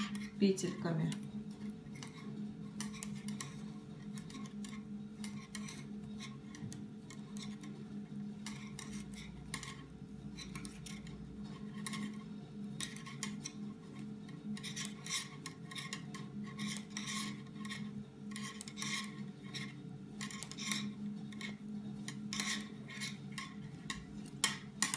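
Metal double-pointed knitting needles clicking and scraping against one another in an irregular patter as knit stitches are worked in the round, over a steady low hum.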